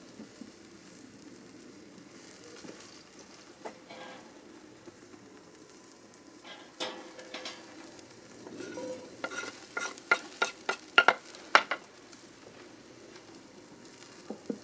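Food frying and sizzling in a pan over an open fire, with a utensil stirring in it. In the second half a quick run of sharp knocks against the pan rings out, louder than the steady sizzle.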